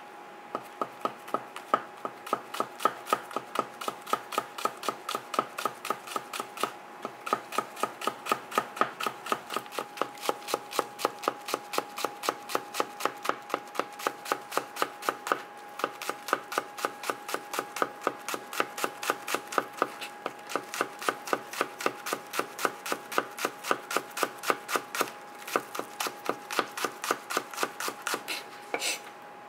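Kitchen knife rapidly slicing scallions into thin rings on a cutting board: steady knife-on-board knocks at about four a second.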